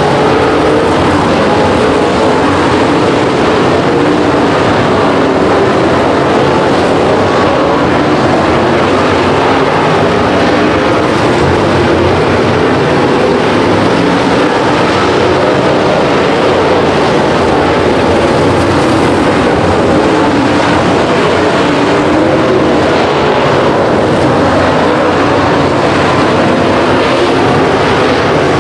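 Dirt late model race cars' V8 engines running flat out during the race, loud and unbroken, with the engine note wavering up and down.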